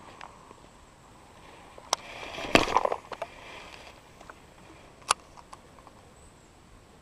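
Casting with a baitcasting rod and reel: a sharp click, then a short rushing whir as the rod swings and line pays off the spool, and a second sharp click a couple of seconds later as the reel is engaged to start the retrieve.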